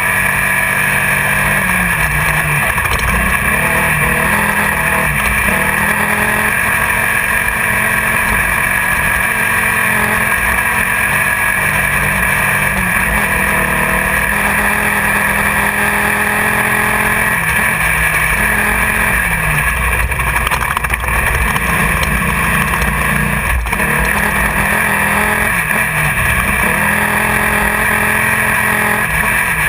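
Off-road race car's engine heard from inside the car, running hard and loud throughout, its pitch rising and falling many times with throttle and gear changes.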